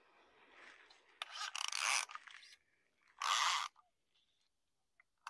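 Fly line rasping through the rod guides as it is pulled off the reel and cast: a rub that builds, then a longer zip about a second in and two shorter zips after it.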